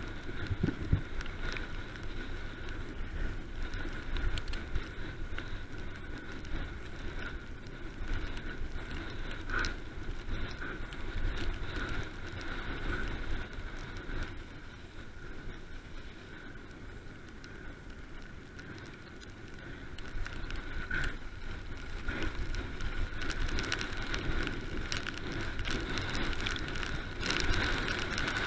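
Mountain bike ridden fast downhill on a dirt and gravel track: tyres crunching on the ground and the bike rattling over bumps, with a steady rushing noise. It eases off a little past the middle, then grows louder again.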